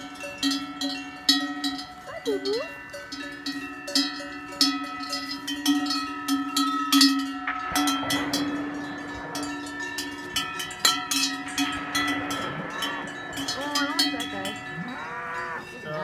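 Cowbells on several Swiss cows clanging at irregular intervals, with each strike ringing on in steady overlapping tones.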